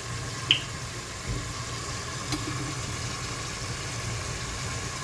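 Chicken pieces frying softly in a pot on low heat, under a steady low hum, with a few small clicks and a dull knock as fish sauce is poured from a plastic bottle onto a metal spoon.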